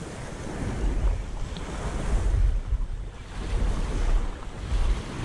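Gusty wind buffeting the microphone over small waves lapping and breaking on a pebbly shoreline.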